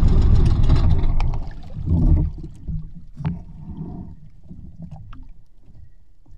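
A small fishing boat's engine running steadily, then dying down about a second and a half in. After that comes a low rumble from the water and hull, with a few faint clicks and knocks.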